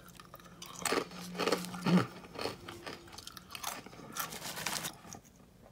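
A mouthful of crunchy snack mix (Gardetto's pretzels and rye chips) being chewed, with a run of sharp crunches about every half second.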